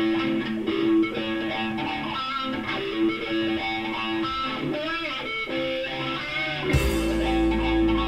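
A music track played through a Bang & Olufsen Beolit 20 portable Bluetooth speaker as a sound test, with a held mid-low note throughout. Near the end a sharp hit comes in together with a deep, steady bass.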